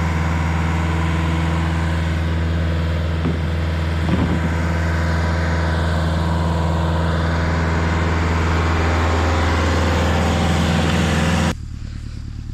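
Stump grinder's engine running steadily at constant speed; it drops out abruptly near the end.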